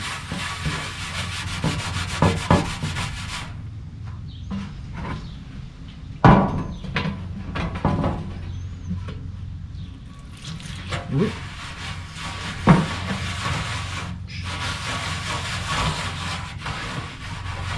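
A rag scrubbing over a steel inner fender panel, wiping off old bitumen underseal with lacquer thinner. The scrubbing stops for several seconds in the middle, with a few knocks and clunks as the can of thinner is handled, then resumes.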